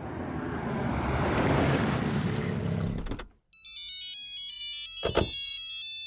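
A car's engine and road noise swelling, then cut off abruptly about three seconds in. Then a mobile phone's electronic ringtone plays a melody of high beeping notes, with a single thud about five seconds in.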